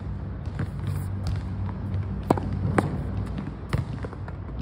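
Tennis ball impacts during wall practice: two sharp pops about half a second apart, a smaller one a second later, over a steady low rumble.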